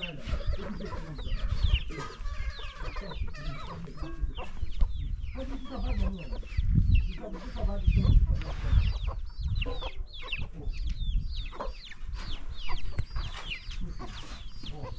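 Chickens clucking, with a steady stream of short, high, falling peeps. Under them is a low rumble that swells loudest around the middle.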